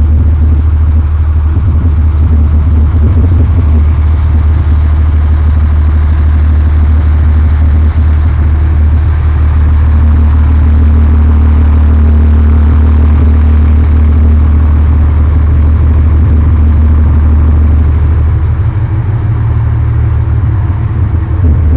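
Boat engine running steadily, a loud low drone that holds even throughout.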